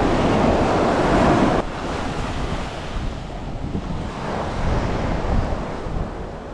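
Ocean surf washing on the beach, with wind buffeting the microphone. The noise drops suddenly about a second and a half in, then swells again a few seconds later.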